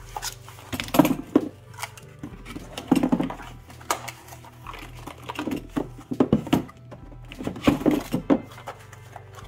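Cardboard packing inserts being lifted out of a box and shuffled, rustling and scraping in irregular bursts, with sharp knocks and clicks from loose plastic parts and packaging.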